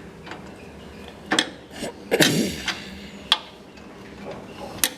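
Hand wrench clinking against a bolt and the baler's steel as a bolt is turned by hand: a few sharp, irregular metallic clicks.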